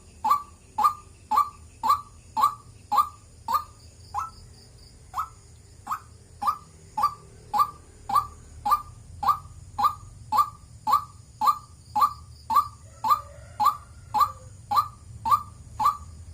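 White-breasted waterhen calling, a monotonous 'wak' note repeated about twice a second with a brief pause about four seconds in.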